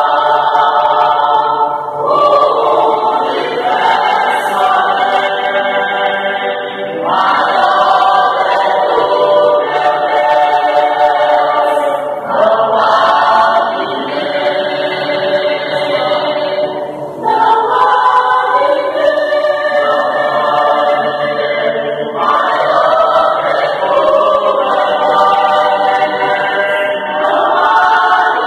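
Mixed choir of men's and women's voices singing a gospel hymn in Portuguese, phrase after phrase with a brief break about every five seconds.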